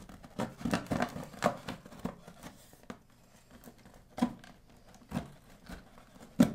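Knife cutting through packing tape and cardboard on a box: a quick run of short scraping cuts in the first second and a half, quieter scratching, then three separate sharp cuts in the second half.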